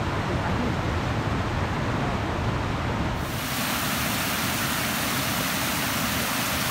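Steady outdoor background noise with no distinct events: a low rumbling rush at first, which changes about three seconds in to a brighter, even hiss.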